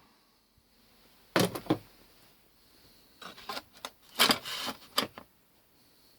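Hammer blows on a wooden mock-up shaft with a steel center-punch insert, marking the center of a steel rear bearing housing. Two sharp knocks about a second in, then lighter clicks, a short rattling clatter and two more knocks as the metal parts are struck and handled.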